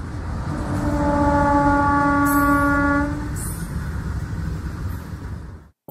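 Train rumbling with one long, steady horn blast that starts about half a second in and lasts nearly three seconds; the sound cuts off abruptly near the end.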